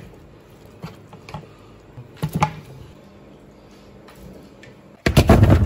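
A metal ladle clinking and knocking as boiled pork bones are scooped out of a wok into a ceramic bowl: a few scattered sharp clinks and a short cluster of knocks. Near the end a much louder, dense burst of clattering noise starts.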